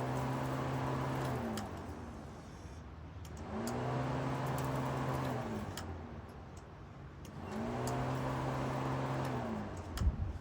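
Subaru Legacy's starter cranking the flat-four engine in three tries of about two seconds each, the whine rising as it spins up and falling away as it stops; the engine does not catch. A short thump near the end.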